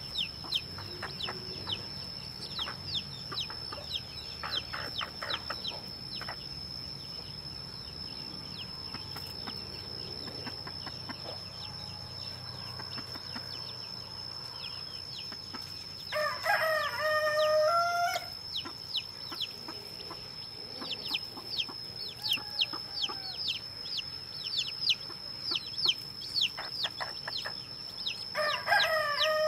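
Newly hatched chicks peeping constantly in short, quick, falling cheeps. A rooster crows loudly about halfway through and starts crowing again near the end.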